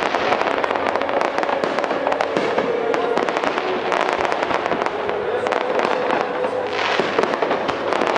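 Fireworks display going off continuously: a dense, unbroken stream of crackles and sharp bangs, with a brief hiss about seven seconds in.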